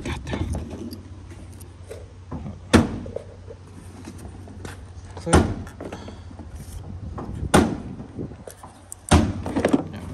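Sharp clacks and knocks of headlight trim and its small clips being handled and pressed into place: four loud ones a couple of seconds apart, with lighter taps between.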